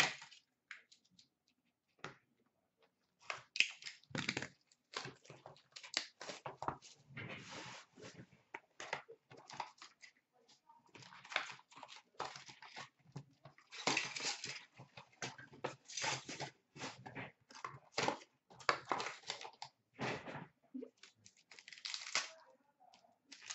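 Plastic shrink wrap and card packs from a box of hockey trading cards crinkling and tearing as they are unwrapped and handled, in irregular bursts of rustling.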